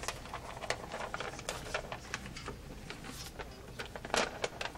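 A sheet of paper rustling and crackling as it is handled and unfolded close to a headset microphone, with a burst of sharper crackles about four seconds in.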